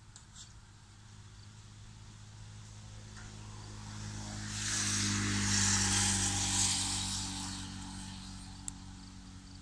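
A motor vehicle passing on the road, its engine and tyre noise growing louder to a peak about halfway through, then fading away. A short sharp click near the end.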